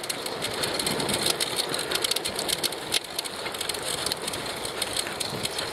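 Bicycle tyres rolling over a crushed-gravel trail: a steady gritty crunch made of many tiny clicks.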